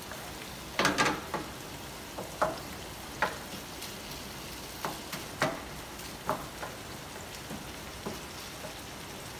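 Meat frying in a pan with a steady sizzle, the meat having given off a lot of its water. A spoon stirs and scrapes against the pan about eight times, loudest in a quick cluster about a second in.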